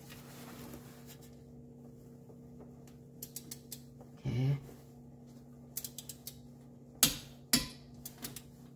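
Click-type torque wrench ratcheting on a drain plug in short runs of small clicks, then two loud sharp clicks about seven seconds in, half a second apart: the wrench breaking over at its 35 ft-lb setting, so the plug is fully torqued.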